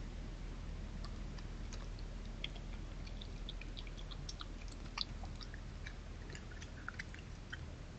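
European badger feeding at the ground close by: irregular small crunching and clicking sounds of chewing, the sharpest about five seconds in, over a steady low hum.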